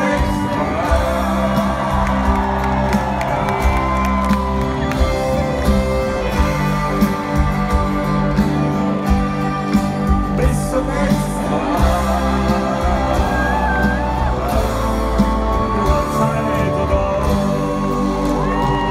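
Live Schlager song played by a full band with a singer and a steady beat, heard from among the audience, with scattered whoops from the crowd.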